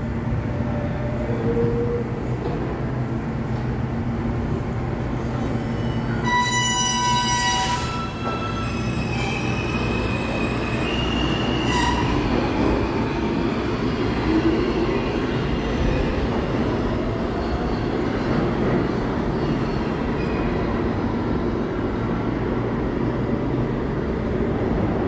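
R160A subway train pulling out of the station and running off down the tunnel: a steady rumble of wheels on rail, with a short burst of high squealing tones about six seconds in and more squeals over the next few seconds.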